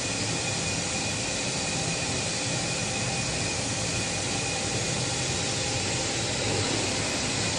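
Gas-fired fire-tube steam boiler's burner and combustion-air fan running steadily: an even rushing noise with a few faint steady whines.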